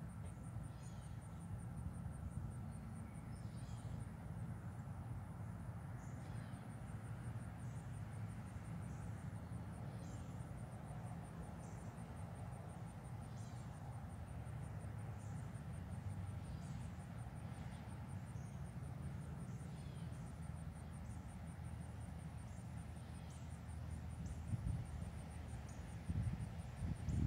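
Insects trilling steadily at a high pitch, with short high chirps about once a second over a low steady rumble, and a few louder bumps near the end.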